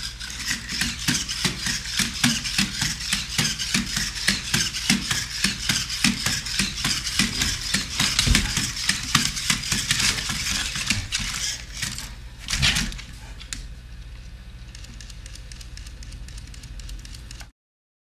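Rapid clicking and tapping of feet on a hardwood floor as a Sony Aibo robot dog and a golden retriever move around each other, several taps a second, with a louder clatter about twelve and a half seconds in. The sound stops abruptly near the end.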